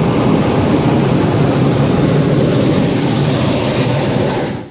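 Hot-air balloon's propane burner firing, a loud steady rush of noise that stops abruptly near the end.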